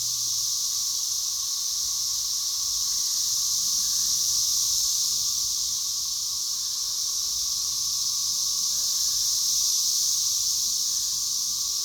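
A chorus of cicadas buzzing loudly in unison. It is a steady, high-pitched drone that swells and eases slightly.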